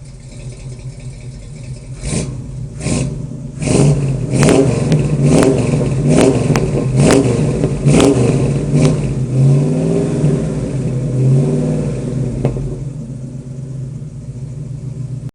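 Ford 302 V8 in a 1968 Mustang idling, then revved in a series of quick throttle blips, one slower rev near the middle, and dropping back to idle. It runs with a severe misfire, which the owner traced to a bad distributor cap.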